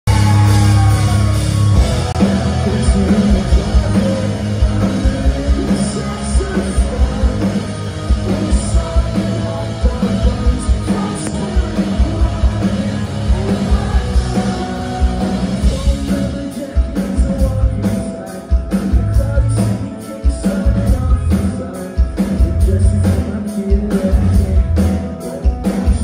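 Rock band playing live: electric guitars, bass and a drum kit with steady drum hits, and singing over it.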